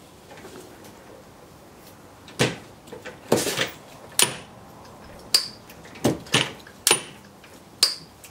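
Sharp metallic clanks and clicks, about nine of them spread over five seconds, some with a brief high ring, as the turret lathe's levers and slides are worked by hand. The mechanism is dry and in need of oiling.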